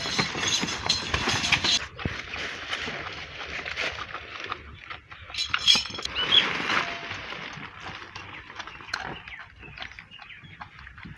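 A calf suckling straight from a goat's udder: wet sucking and smacking noises, louder in the first two seconds and again around six seconds in.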